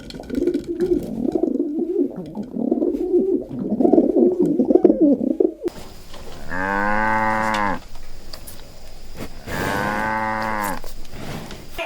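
Pigeons cooing for the first half, then, after an abrupt change, a cow mooing twice, each moo a little over a second long and arching in pitch.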